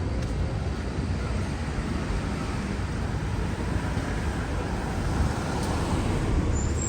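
Steady city street traffic noise, a continuous rumble of passing road vehicles.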